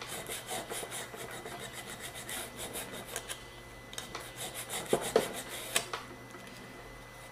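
Small flat file scraping back and forth along the inside edge of an apex seal groove in a cast-iron Mazda 13B rotor: a run of quick, short strokes for about three seconds, then a few scattered, fainter strokes. It is a light cleaning of the groove edge that takes off only a tiny bit of metal, so the apex seal can drop all the way in.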